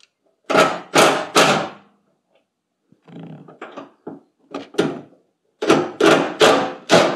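A wrench loosening the fuel tank's 13 mm mounting bolts: a series of short, sharp mechanical bursts. Three come close together near the start, a softer cluster follows in the middle, and five more come toward the end.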